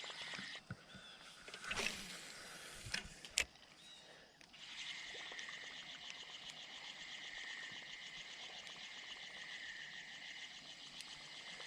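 A frog's steady, rapidly pulsed trill that cuts out about half a second in and starts again at about four and a half seconds; in the gap come a few sharp knocks, the loudest about three and a half seconds in.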